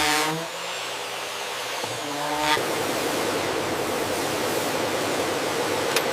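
Music fades out in the first half second. About two and a half seconds in, a steady rushing noise sets in and holds, with a sharp click near the end.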